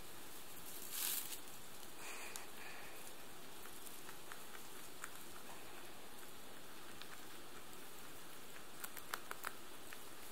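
Lop-eared rabbit pulling dry hay through a wire hay rack and munching it: soft rustling of hay and light crunchy crackles, a brief louder rustle about a second in and a quick cluster of crackles near the end, over a steady faint hiss.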